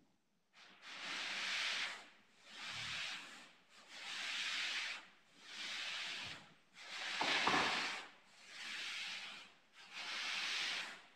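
A long two-handled sanding board worked by two people, rasping back and forth over filler on a boat hull. Seven or so even strokes, one about every one and a half seconds, each lasting about a second; one stroke a little past the middle is the loudest.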